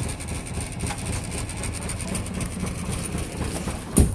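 A vehicle engine idling steadily with a low rumble, cut by one sharp knock near the end.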